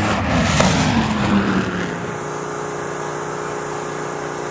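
Drag racing car engines: a loud surge of engine noise with sweeping pitch over the first two seconds, then a steady engine drone.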